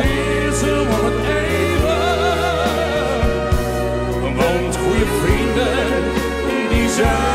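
A live band playing a ballad, with two male voices singing long, drawn-out notes with vibrato over steady bass notes.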